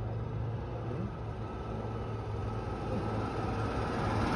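Steady low hum of motor vehicle noise, growing louder toward the end.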